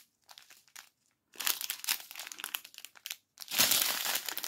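Small clear plastic bags of diamond painting drills crinkling as they are handled. A few soft ticks come first, then the crinkling grows louder near the end.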